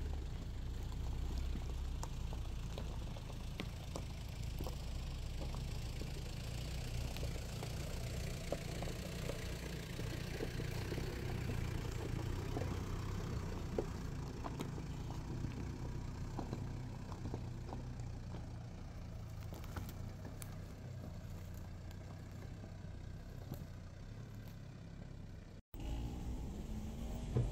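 Off-road SUVs crawling slowly up a rocky dirt track: engines running low and steady, with scattered clicks of loose stones under the tyres. The sound cuts out briefly near the end.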